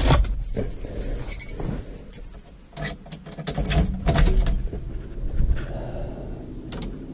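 Keys jangling and irregular clicks and rattles as the ignition key and the wiper stalk on a Chevrolet S-10's steering column are worked.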